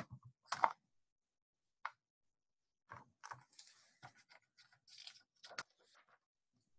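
Faint paper rustling and soft scratchy clicks from a picture book being handled and its pages turned, a scattering of short sounds mostly in the second half.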